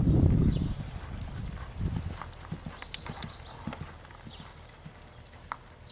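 Hooves of a cantering dressage horse striking a sand arena: irregular soft thuds and clicks. A louder low rumble lasting about a second comes right at the start.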